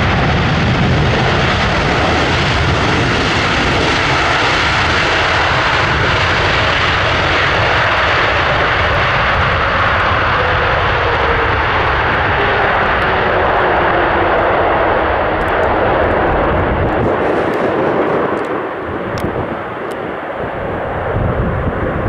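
The GEnx jet engines of a Boeing 747-8 freighter roar during the landing rollout. A whine falls in pitch about halfway through as the engines spool down, and the roar eases off near the end.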